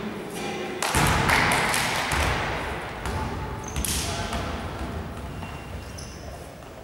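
Voices shouting and cheering in an echoing sports hall. The noise breaks out suddenly about a second in, swells again near four seconds and fades, with a few thuds from a basketball.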